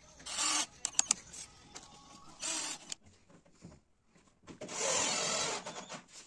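Cordless drill driving hinge screws in short runs. Two brief runs come in the first three seconds and a longer one of about a second and a half comes near the end, with a couple of sharp clicks about a second in.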